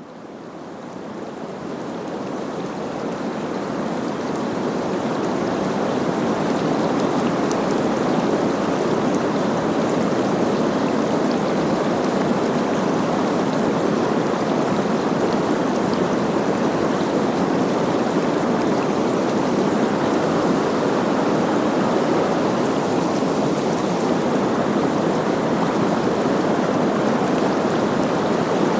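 Steady rushing of a small river's water running over a shallow riffle. It fades in over the first few seconds, then holds level.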